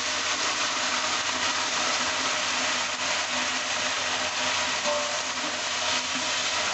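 Water poured into hot oil and fried onions in a large pot, setting off a loud, steady sizzle as the mixture is stirred with a spatula.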